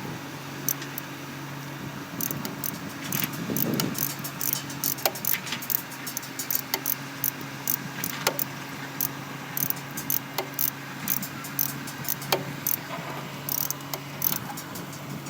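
Metal tools clinking and ticking against metal in quick, irregular clusters, over a steady low mechanical hum.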